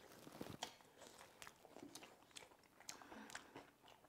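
Faint chewing: a person eating a mouthful of kimchi-tuna gratin, with soft wet mouth clicks and smacks scattered through it.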